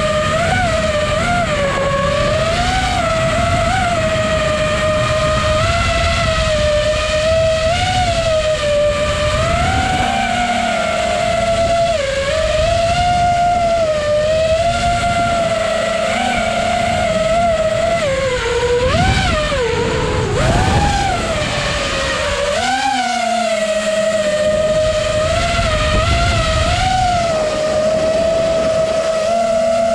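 FPV racing quadcopter's electric motors whining, the pitch rising and falling constantly with the throttle, with a sharp drop and swoop about 19 to 20 seconds in. Wind rush on the onboard camera's microphone underneath.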